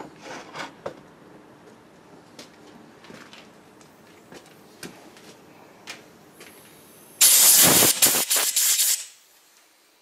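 Faint clicks and handling, then about seven seconds in a loud hiss of a pressurised jet, in a few quick pulses lasting about two seconds, most likely air or spray used to clear the freshly tapped hole in the cast-iron block, cutting off suddenly.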